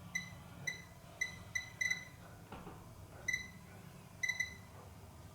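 Short, high electronic keypress beeps from a power supply tester as its load setting is stepped: about nine identical beeps at uneven intervals, some in quick pairs.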